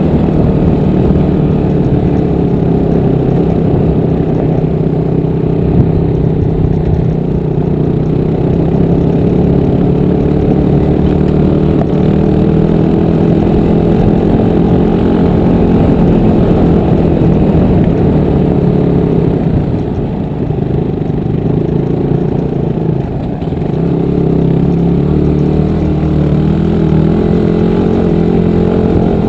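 Dirt bike engine running steadily while riding, loud and close to the microphone, with the revs dropping briefly about two-thirds of the way through before picking up again.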